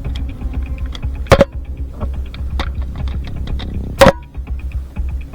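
Two sharp pops from a Nerf blaster firing, about a second and a third in and about four seconds in, over background music with a steady beat.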